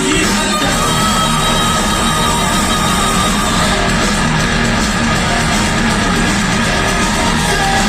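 Rock-style band music, an instrumental passage without singing, loud and steady throughout.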